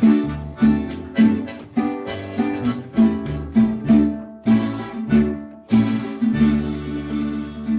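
Acoustic guitar strummed in a steady rhythm, with a strong stroke about every half second and a longer ringing chord near the end.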